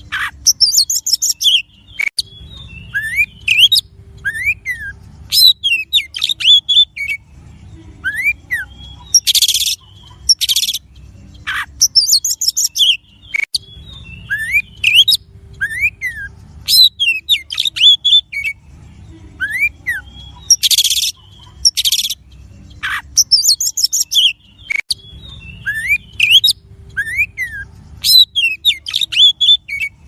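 Oriental magpie-robin (kacer) singing a loud, varied song of clear whistles that rise and fall, rapid trills and harsh chattering notes. The same song sequence repeats about every eleven seconds.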